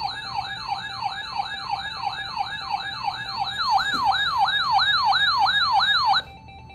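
Electronic siren tone sweeping rapidly down in pitch over and over, about three sweeps a second, cutting off suddenly near the end.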